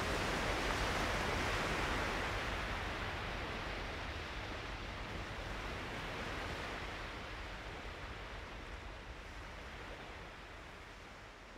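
A steady rushing noise with no distinct tones, fading out gradually through the second half.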